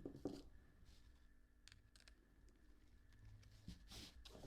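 Near silence with a few faint, scattered clicks of small parts being handled by hand.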